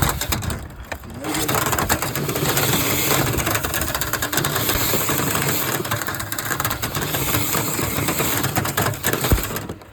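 Power-driven rotary dryer-vent brush spinning on its rods inside the vent duct while it is run down the vent: a motor running with dense rattling and scraping. It dips briefly about a second in and stops just before the end.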